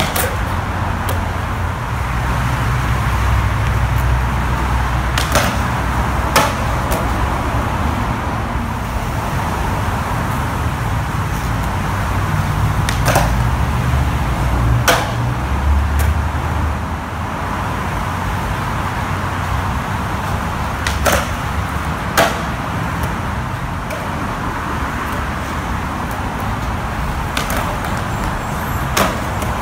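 Skateboard urethane wheels rolling on concrete, with sharp wooden clacks as the board's tail pops and the board lands, several of them in pairs about a second apart. Under it all is a steady hiss of traffic.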